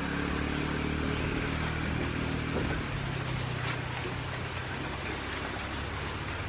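An engine running steadily with a low hum, under a steady hiss.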